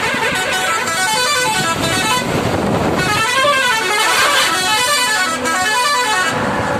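Truck's musical multi-tone horn sounding a fast run of notes that step up and down, several tones overlapping, over the truck's running noise.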